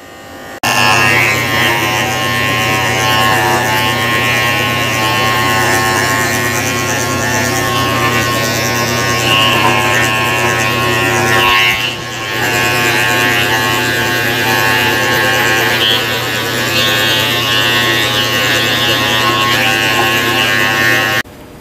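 Electric dog-grooming clippers running with a steady hum, cutting a Yorkshire terrier's coat. The hum dips briefly about twelve seconds in.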